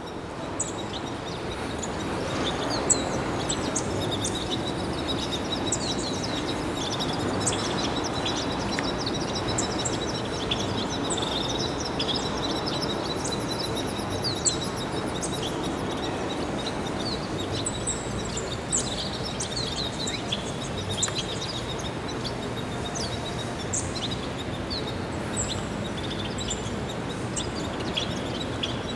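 Many small birds chirping and twittering together in an aviary, short high calls overlapping all the way through, over a steady background noise.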